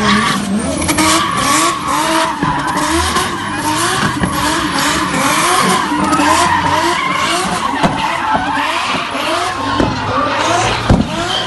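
Nissan Skyline R34's RB25 straight-six revving up and down over and over, about twice a second, while the car drifts, over a steady hiss of sliding, spinning tyres. A sharp crack near the end.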